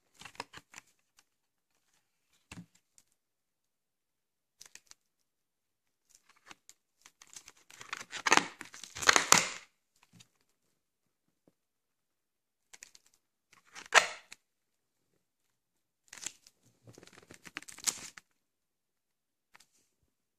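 A white plastic VHS clamshell case being handled and shut: intermittent bursts of plastic crinkling and rustling with sharp clicks. The longest and loudest burst comes about eight to ten seconds in, with a short sharp one about fourteen seconds in and a cluster near the end.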